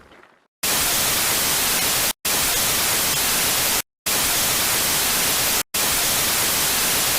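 Four bursts of loud, even white-noise static, each about a second and a half long, broken by brief cuts to silence and ending abruptly. Before them, the last of a deep rumble fades out in the first half second.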